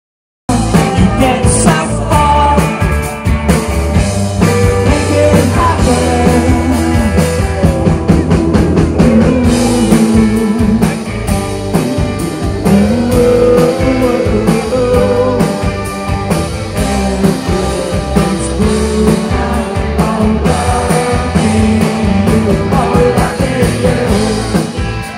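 A live rock band playing a song, with a lead vocal singing over electric guitars, bass and drums, amplified through the stage PA.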